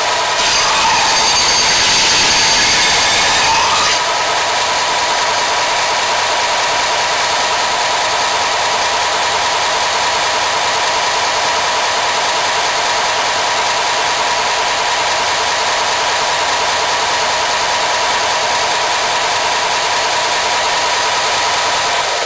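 Belt sander running with a steady whine over a grinding hiss as a Martindale golok's blade is ground to a convex edge; the hiss is harsher for the first four seconds.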